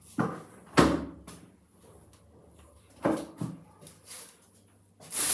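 A handful of sharp knocks and bumps from things being handled on a bathroom counter, the loudest about a second in. Near the end a spray bottle starts to hiss.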